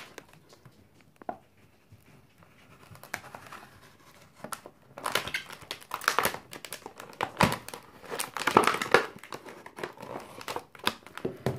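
Stiff clear plastic blister pack being slit with a knife and pried apart. A few isolated clicks come first, then from about halfway a run of loud crinkling and crackling of the plastic.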